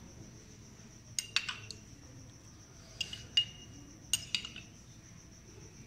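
Metal spoon clinking against a small ceramic cup of sugar syrup in three short clusters of taps, each with a brief ring, as syrup is spooned out onto a sponge cake.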